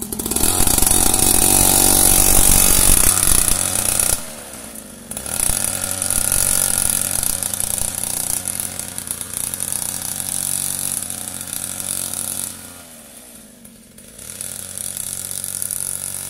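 Small engine of a kids' mini dirt bike running hard under way. Its speed drops and picks up again twice, about four seconds in and near the end.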